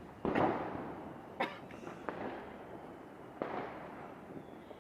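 Firecrackers bursting: a loud bang with a fading echo tail about a third of a second in, then fainter bangs around one and a half, two and three and a half seconds in.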